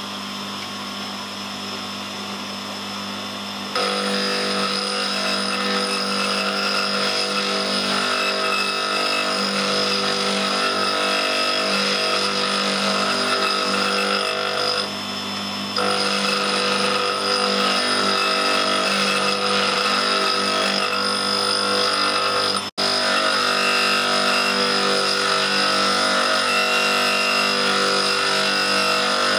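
Tool and cutter grinder's motor and cup wheel running with a steady whine while a high-speed-steel parting-off tool is ground against the wheel, moved back and forth to regrind its chipped corner. The grinding gets louder about four seconds in and eases briefly around halfway.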